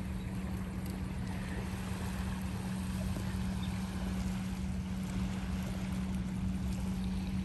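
Wind buffeting the microphone, with an irregular low rumble over a constant low hum and a faint even hiss.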